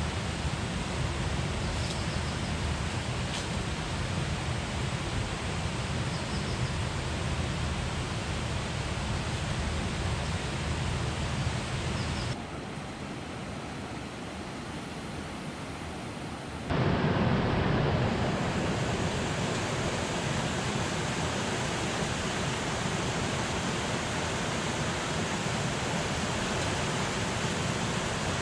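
Steady rush of a rocky river cascading over boulders in small waterfalls, an even noise of running water. About twelve seconds in it drops to a softer, duller rush, and about four seconds later it returns louder.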